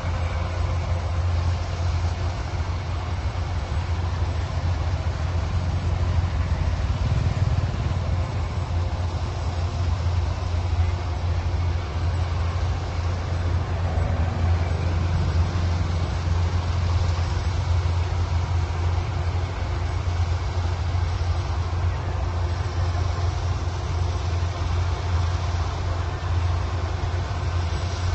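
Engine of heavy harvesting machinery running steadily at constant speed, with a deep hum and no change in pitch.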